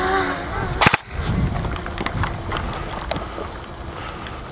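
Airsoft gun firing: one sharp, loud shot just before a second in, followed by a few fainter clicks.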